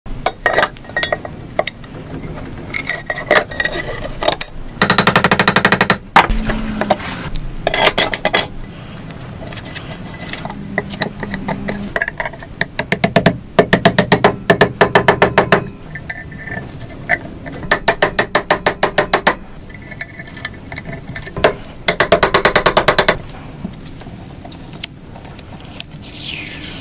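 Hand tools working a clay model: scattered knocks and scraping, broken by several bursts of rapid, evenly spaced tapping, about eight taps a second.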